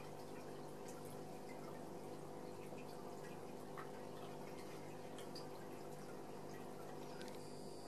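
Aquarium aeration bubbling and dripping: air bubbles rising through the tank water and popping at the surface as many small scattered ticks, over a steady low hum from the tank's equipment.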